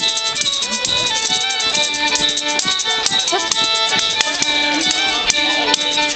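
A fiddle playing a traditional dance tune in long bowed notes, with a tambourine keeping the beat.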